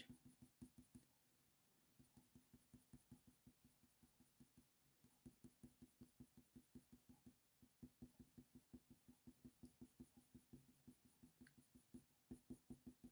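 Faint, quick strokes of a Faber-Castell Polychromos coloured pencil scratching on hot-press watercolour paper while shading, about three strokes a second, sparse for the first few seconds.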